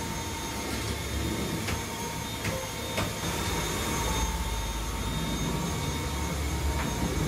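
Cordless stick vacuum cleaner running steadily over a hard wooden floor, its motor making an even rushing noise with a thin high whine, and a few light clicks about two to three seconds in.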